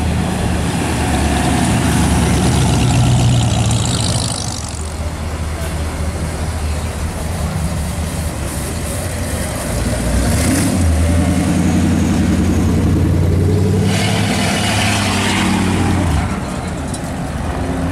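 Engines of old custom cars running with a low, steady rumble as they cruise slowly past one after another. The engine sound swells twice, about two to four seconds in and again from about ten to sixteen seconds in.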